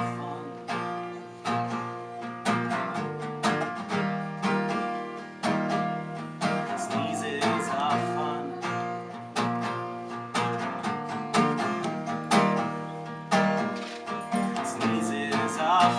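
Acoustic guitar strummed in a steady folk rhythm as the unplugged song plays out after its last sung line, with a strong stroke about once a second. A wavering melody line joins the chords near the end.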